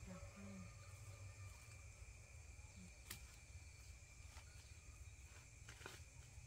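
Near silence: faint outdoor ambience with a low rumble, a faint steady high tone and a few soft clicks, about three seconds and six seconds in.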